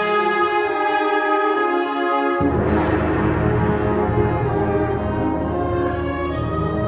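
Student concert band playing live: sustained chords from woodwinds and brass, with the low instruments joining in about two and a half seconds in.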